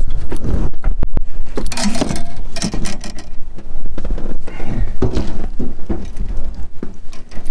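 Close handling noise as hands unhook a rainbow trout in a landing net: rustling and rubbing, with irregular knocks and clicks, and a heavy low rumble from sleeves and hands brushing near the microphone.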